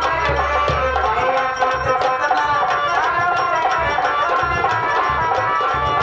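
Live Indian folk music accompanying a nautanki dance: hand drums keep a fast, even beat under a wavering melody line.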